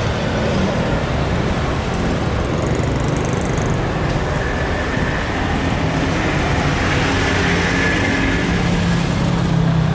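Boeing 737 jet engines at takeoff thrust on the takeoff roll, a steady loud rush with a low drone. A faint fan whine comes in about halfway and is strongest near the end.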